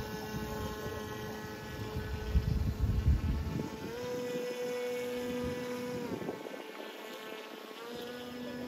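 Radio-controlled model boat's motor whining steadily, its pitch stepping up about four seconds in, dropping back a couple of seconds later and rising again near the end as the throttle changes. Wind rumbles on the microphone in the first few seconds.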